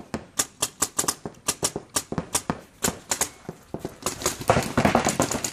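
Paintball markers firing in quick, irregular strings of sharp pops, several a second, coming thickest near the end.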